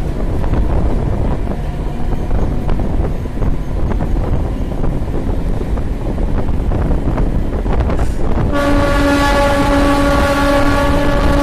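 A moving MEMU electric train rumbles along with occasional clicks from the track. About eight and a half seconds in, a train horn starts suddenly and sounds as one long, steady blast.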